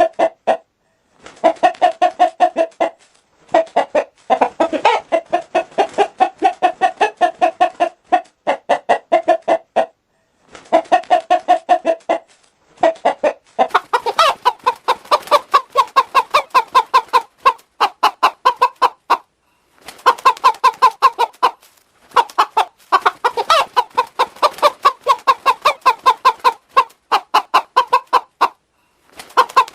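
Hen clucking in rapid runs of several clucks a second, altered by a voice-changer effect. About 14 seconds in, the clucks jump to a higher, brighter pitch as a different effect takes over.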